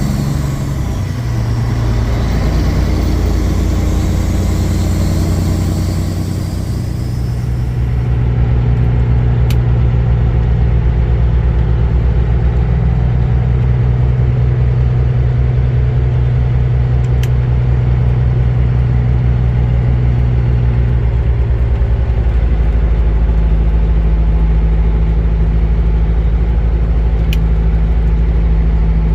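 Kenworth W900 semi truck's diesel engine running steadily at road speed, a continuous low drone. About three quarters of the way through, the engine note shifts lower.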